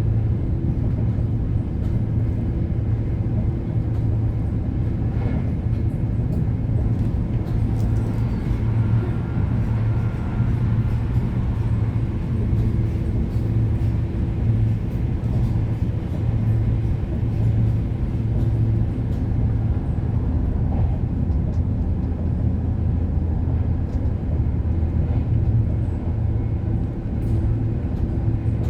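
Passenger train running steadily, heard from inside the carriage: an unbroken low rumble of wheels and running gear under a steady low hum.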